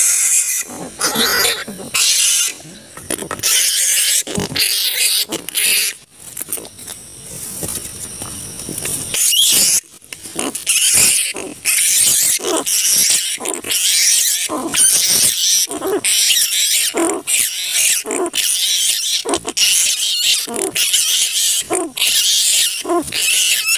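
Giant flying foxes (kalong kebo) screeching in a colony, many harsh, high squeals and chatters overlapping in quick succession, briefly quieter about six seconds in.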